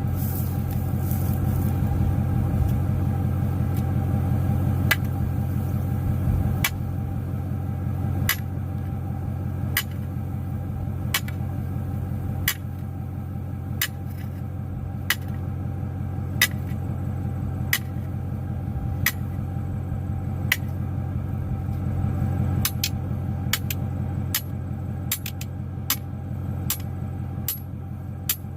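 Vehicle engine running steadily at low speed while driving, with sharp ticks about every second and a half that come quicker and closer together near the end.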